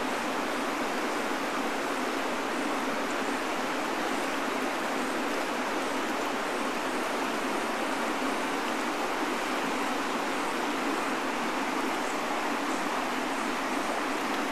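Steady rush of a shallow river's current running over riffles.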